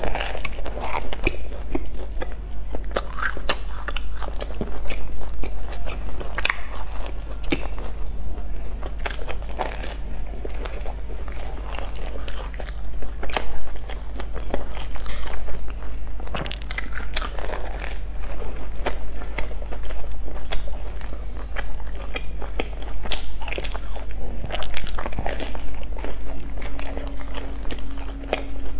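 Close-miked biting and chewing of a deep-fried, breadcrumb-coated red bean paste bun: repeated crisp crunches of the fried crust, over a steady low hum.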